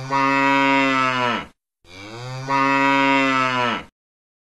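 Cow mooing twice: two long moos of about two seconds each, steady in pitch and tailing off at the end, with a short pause between them.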